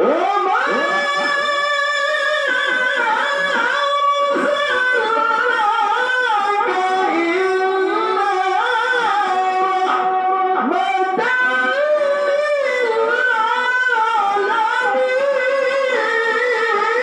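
A qari reciting the Quran in the melodic tilawah style: one loud, high voice holding long ornamented notes that waver and slide between pitches, with no break.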